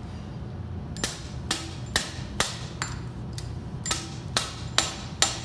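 A hammer striking a Parker hose fitting to drive it onto the hose end: about ten sharp metallic taps, roughly two a second, starting about a second in, seating the fitting until it bottoms out. A steady low machine hum runs beneath.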